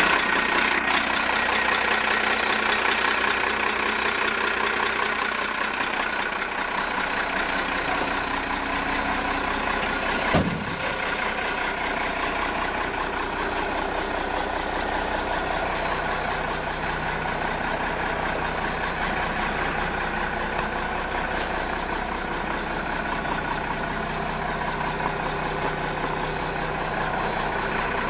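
The Cummins 6CTA8.3 six-cylinder turbo diesel of a 1991 M932A2 6x6 military tractor truck idling steadily. A single short thump comes about ten seconds in.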